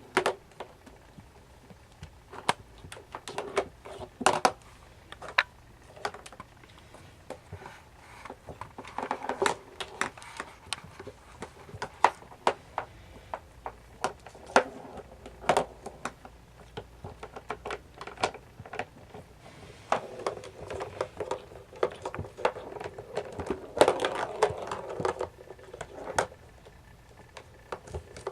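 Siamese kittens playing: irregular taps, clicks and scuffling rustles, with busier bursts of scuffling in the middle and again near the end.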